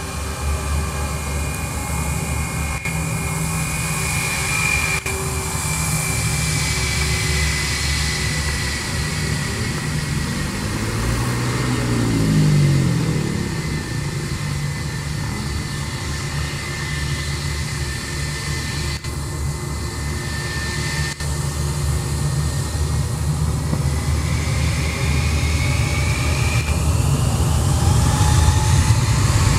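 Airbus A319 jet engines whining at taxi power as the airliner rolls close by. Near the end the whine climbs in pitch and gets louder as the engines spool up.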